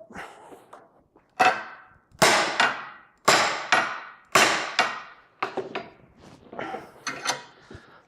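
About a dozen sharp metal knocks with short ringing tails, irregular and roughly half a second to a second apart, from the work of forcing a seized U-joint bearing cap out of an axle shaft yoke with sockets in a bench vise as the cap breaks loose.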